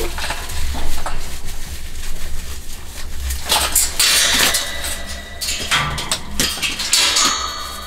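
Rustling and scraping as a spring-framed pop-up mesh enclosure is twisted and folded by hand, loudest about four seconds in.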